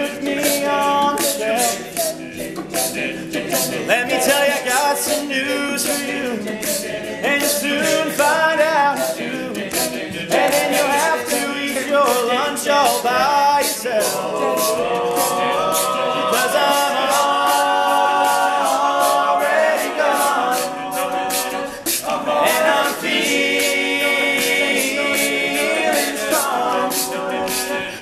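Male a cappella group singing live: several voices in wordless backing harmony, changing chords every few seconds over a steady beat of vocal percussion.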